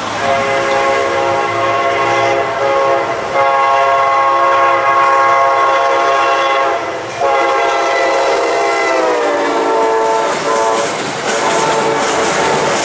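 Amtrak GE P40DC locomotive's horn, several tones sounding together, blowing long blasts with short breaks as the train approaches. The pitch drops about nine seconds in as the locomotive passes. The passenger cars then roll by with clattering wheels.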